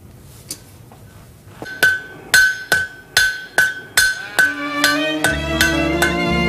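Blacksmith's hammer striking an anvil in a steady ringing rhythm, about two to three blows a second. About five seconds in, folk-style music with fiddle joins underneath.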